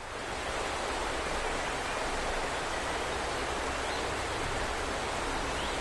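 Rushing water of a small waterfall, a steady even hiss that fades in at the start.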